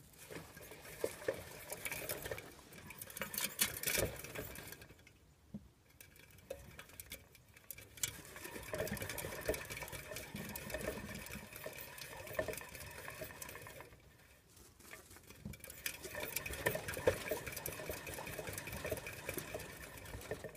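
Degus scrabbling and pattering about their cage in wood-shaving bedding, a busy run of small clicks and scrapes in three spells of several seconds with short pauses between.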